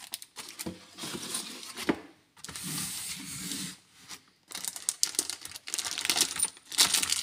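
Plastic packaging crinkling and rustling, with light clicks and taps, as hands move the plastic-bagged CB radio and microphone in their cardboard tray. It comes in irregular bursts with short pauses.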